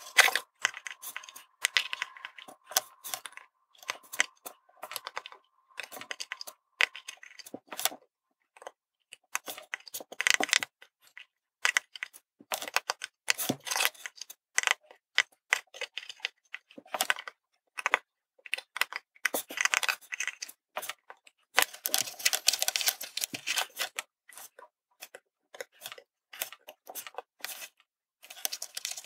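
Irregular small clicks and taps of metal tweezers picking up tiny surface-mount LEDs and setting them on printed circuit boards and the wooden bench during hand soldering, coming in clusters with short pauses between.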